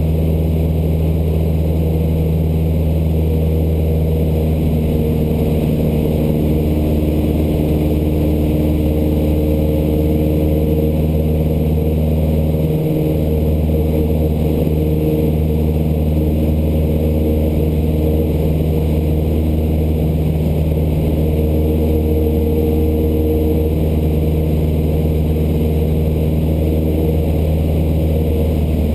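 Cessna 152's four-cylinder Lycoming engine and propeller droning steadily in flight, heard from inside the cabin.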